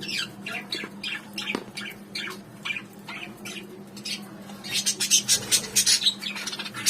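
A flock of small birds chirping and squawking: many short, downward-sliding calls, several a second, getting denser and louder about two-thirds of the way through.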